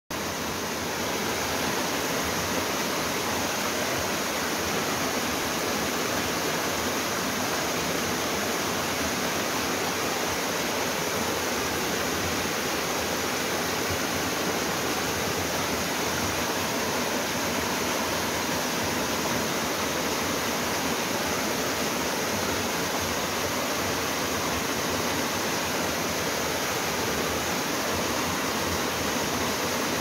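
Small mountain-stream cascade pouring over a rock ledge into a pool: a steady, even rush of falling water that fades in over the first second.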